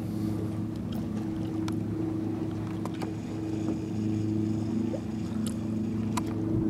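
A steady engine hum that holds one pitch throughout, with a few faint clicks scattered through it.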